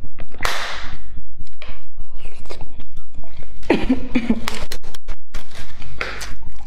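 Boiled eggshells cracking and crackling as they are peeled by hand: many small sharp clicks and snaps, mixed with chewing mouth sounds. A brief rush of noise comes about half a second in.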